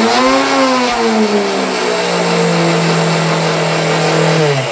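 Router motor in a router table running on a variable-speed control: its whine rises for about half a second as the speed dial is turned, eases back down and holds steady, then near the end it is switched off and begins to wind down.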